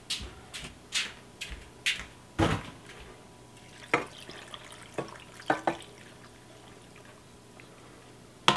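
Water poured from a stainless steel container into a stainless steel pot, with sharp metal clinks and knocks as the container is handled: a quick run of them in the first couple of seconds and a few more later.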